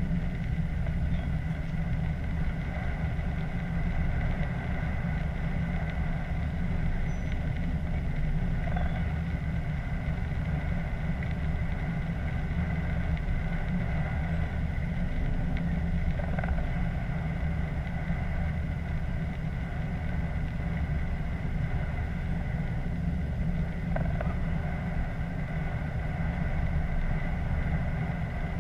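Train running at speed, heard from inside the driving cab: a steady, even rumble with a steady whine held above it.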